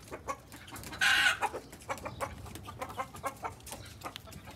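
Chickens clucking in short scattered calls, with one loud squawk about a second in.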